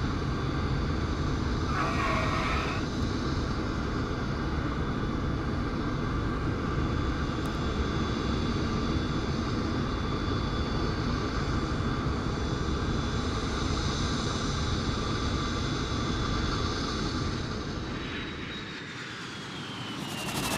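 Aircraft engine running steadily, a dense rush with a high whine. Near the end the whine falls in pitch and the sound dips.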